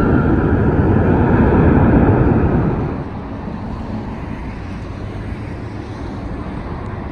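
Airbus A319 jet engines running loud at high thrust on the runway, with a whine over the rumble. About three seconds in, the sound drops suddenly to a quieter, steady jet rumble from an Airbus A321 on final approach.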